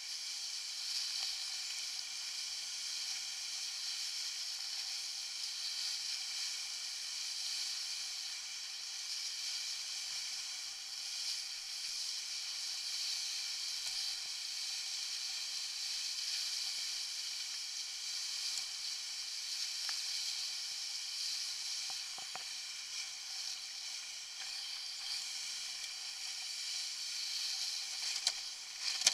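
Steady rushing hiss of water and wind streaming past a Buzz sailing dinghy's hull as it sails fast with spray off the bow. A few faint knocks come near the end.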